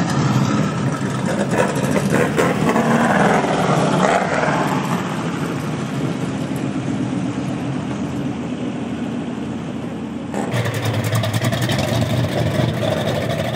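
Off-road race vehicle engines running hard and revving, with rising pitch in the first few seconds. About ten seconds in the sound changes abruptly to a different, steadier engine note.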